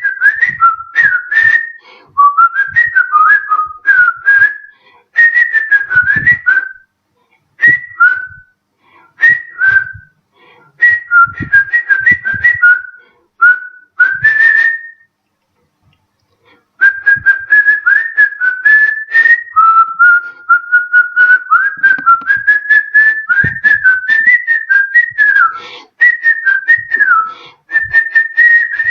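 A man whistling a melody through pursed lips, the tune gliding and trilling up and down in short phrases. About halfway through it stops for a couple of seconds, then resumes in a longer unbroken phrase.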